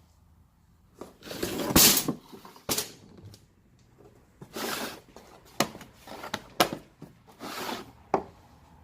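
Irregular clattering, knocks and rustling as parts of a cooling-system pressure tester kit are handled and sorted in its case while the adapters are searched through. The loudest clatter comes about two seconds in.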